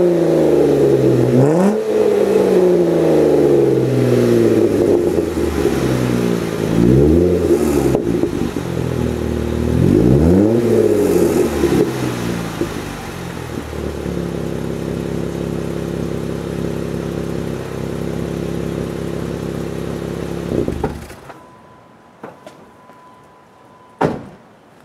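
3.6-litre Pentastar V6 of a Jeep Wrangler running through an aFe MACHForce HiTuck 2.5-inch stainless cat-back exhaust: revved in several short blips, then idling steadily for about ten seconds. The engine shuts off about 21 seconds in, and a single knock follows near the end.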